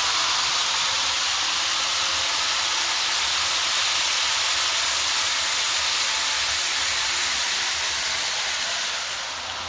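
N-scale model trains running on the layout's helix track, heard as a steady hiss that eases off slightly near the end.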